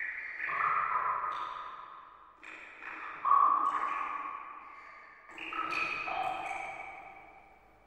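Background music of soft ringing, chime-like notes: a new chord struck every second or two and left to fade.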